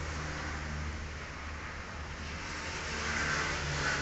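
Steady low background rumble with a hiss over it, growing louder about three seconds in.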